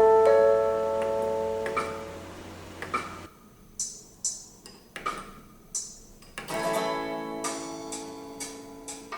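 Background music: strummed acoustic guitar chords ringing out, with a ticking beat of about two ticks a second.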